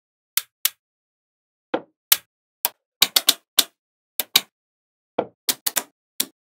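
Small magnetic balls clicking as they snap together one after another: a run of sharp, irregular clicks, some in quick clusters, with a few duller taps among them.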